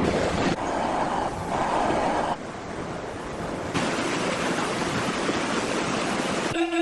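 Steady rushing noise of floodwater and storm wind, its character changing abruptly several times as the footage cuts. Just before the end a held musical tone begins.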